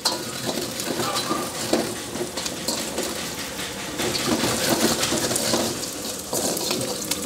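Ginger, green chillies and coconut pieces sizzling in hot coconut oil in a wok, stirred with a metal ladle that scrapes and clinks against the pan now and then.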